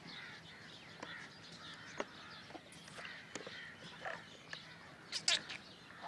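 Birds calling, with many short scattered calls and a louder, sharper cluster of calls a little after five seconds in.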